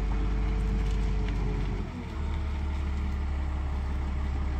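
Engine of a marina boat hoist running steadily as it lowers a boat. About two seconds in its note changes, with a brief dip in level, and it settles into a steady low drone.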